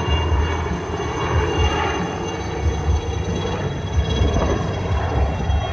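Alouette III helicopter flying overhead in a display: a steady rumble of rotor and turbine with a thin, constant high whine.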